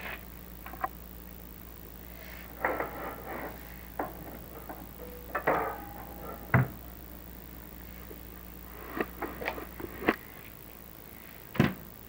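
Chimney inspection camera and its cable knocking and scraping against the brick walls of a flue as it is lowered, in irregular bumps with the loudest thump about six and a half seconds in. A low steady hum runs underneath and stops about ten seconds in.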